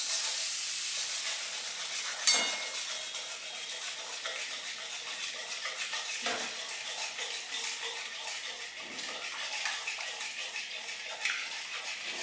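Onion-tomato masala sizzling in a pan as milk is stirred into it, with a spoon scraping and clicking against the pan. One sharp knock of the spoon on the pan about two seconds in is the loudest sound.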